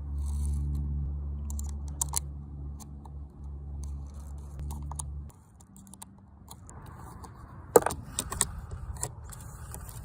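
Suppressed Ruger .22 pistol: a scatter of sharp pops and metallic clicks, one about two seconds in and a quick run a little under eight seconds in, the loudest among them. A steady low hum runs underneath for the first half and stops about five seconds in.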